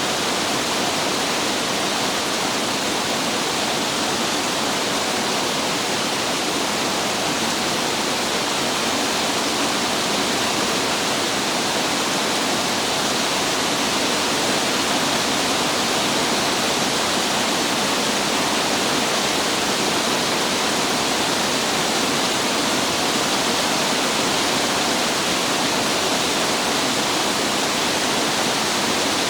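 Heavy rain pouring down steadily: a dense, even hiss that holds the same level throughout.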